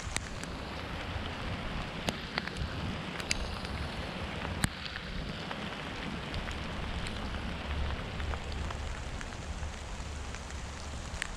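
Steady rain falling, with scattered sharp ticks of single drops striking close by.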